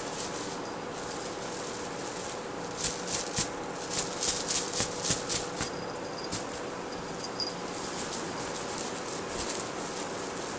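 Small jingle bell on a kitten's collar jingling as the kitten moves about. There is a quick run of jingles about three seconds in, then a few scattered ones and a brief ring.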